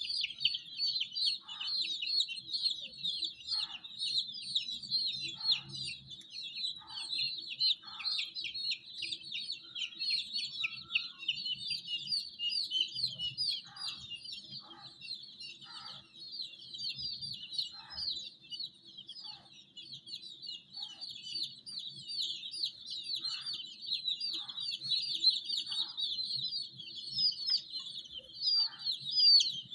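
A brood of baby chicks peeping nonstop, many high, quick chirps overlapping into a dense chorus.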